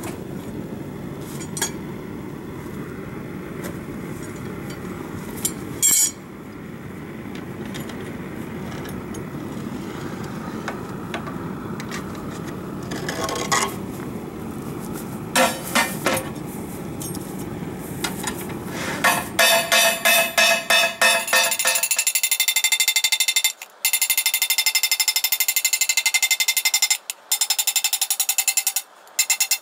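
A propane weed-burner forge running with a steady low noise, with a few metallic clanks as a large hot steel plate is handled. From about two-thirds of the way in, a hand hammer strikes the hot quarter-inch steel plate in a fast, regular run of blows.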